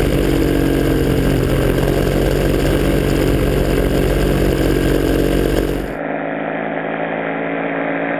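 Paramotor engine running at a steady pitch. About six seconds in the sound changes abruptly and turns duller and a little quieter, as at a cut to another recording, with the engine still running.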